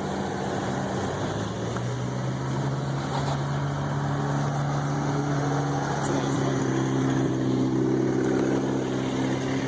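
Car engines running close by, holding a steady note, with another engine's pitch rising about five seconds in as it pulls away.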